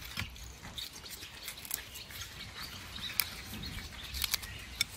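Dill-filled flatbread pastries being torn apart by hand on a plate: scattered soft crackling and rustling of the dough. Birds chirp in the background.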